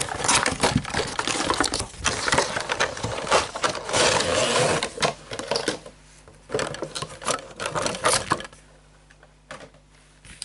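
Toy packaging being opened by hand: the cardboard box and clear plastic tray rattle, click and crackle in a rapid, uneven run. It dies down to a few faint clicks about eight and a half seconds in.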